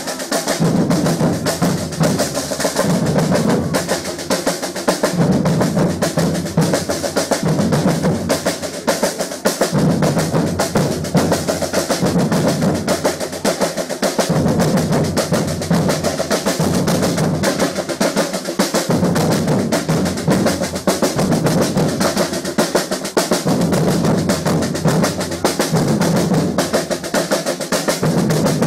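Batucada samba drum group playing: snare drums rattling in a fast, steady rhythm over deep bass drum beats that swell every couple of seconds.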